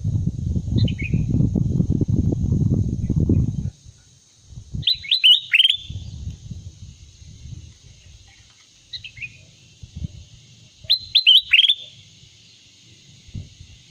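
Kutilang emas (a bulbul) calling: quick runs of four or five sharp falling whistled notes, twice, with a few fainter single notes between, over a steady high hiss. A loud low rumble fills the first few seconds.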